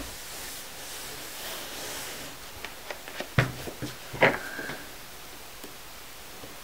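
A small white cardboard puzzle box handled by hand on a mat: a faint rustle, then a few sharp taps and clicks from about three seconds in, as the box is set down and its end is picked open.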